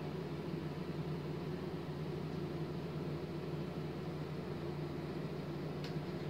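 Steady low mechanical hum with a hiss, unchanging throughout; a faint click about six seconds in.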